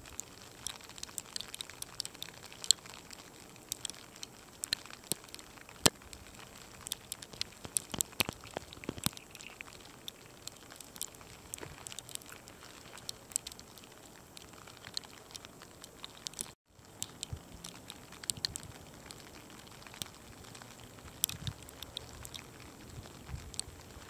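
Graupel mixed with snow pattering down, with many small pellets ticking irregularly as they strike.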